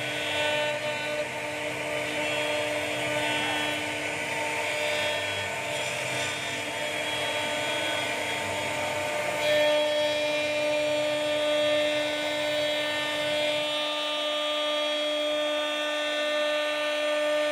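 CNC router spindle whining steadily as its bit carves into a wooden bed panel, over the rasp of the cut wood. The pitch of the whine shifts a little about halfway through.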